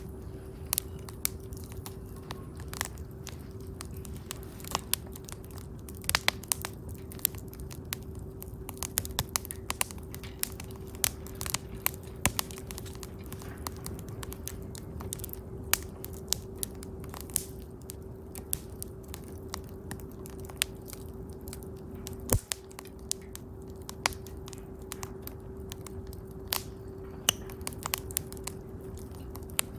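Wood campfire crackling: irregular sharp pops, often several a second, over a steady low rumble of burning. A steady hum runs underneath.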